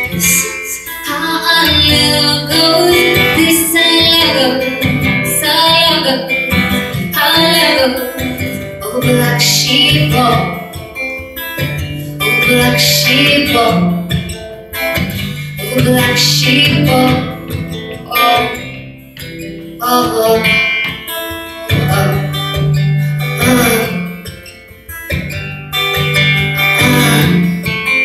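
Acoustic guitar strummed in a steady rhythm, playing a song's accompaniment live.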